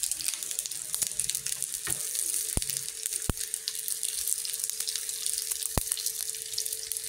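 Slices of dried pangasius (khô cá tra) frying golden in shallow oil in a pan: a steady sizzle with crackling of spitting oil. A few sharp clicks come through, as chopsticks turn and lift the pieces.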